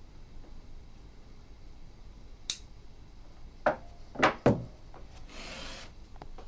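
Handling at a wooden bookbinding desk: a faint click, then three sharp knocks in quick succession, followed by about a second of paper rustling as hands smooth the sheets of a text block.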